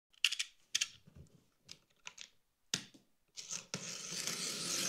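Cardboard box being opened: a few short scrapes and knocks, then a steady tearing rustle of cardboard and packing from about three and a half seconds in.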